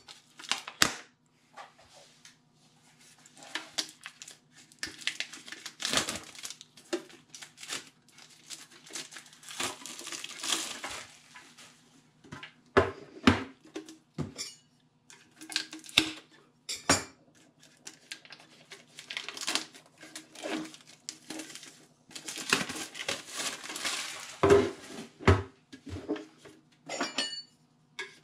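Metal collector tins being handled and set down on a wooden desk, with plastic shrink wrap crinkling. The sound is a run of irregular clinks, knocks and rustles.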